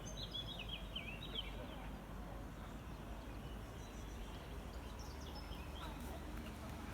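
Small birds chirping in quick twitters, a burst in the first second and a half and more near the end, over a steady low outdoor background rumble.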